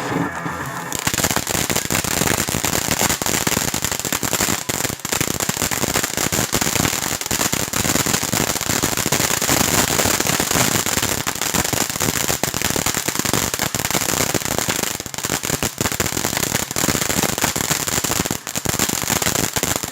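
Small consumer firework crackling, a dense unbroken run of rapid pops over a steady hiss, starting about a second in and stopping near the end.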